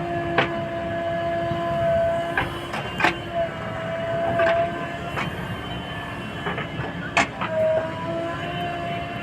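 JCB 3DX Plus backhoe loader working: engine running with a steady, slightly wavering whine, broken by irregular sharp metallic clanks and knocks.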